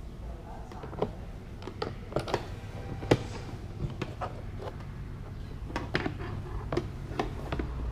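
Scattered light clicks and knocks of hand tools and plastic trim pieces being worked off a car door, a few every couple of seconds, over a low steady hum.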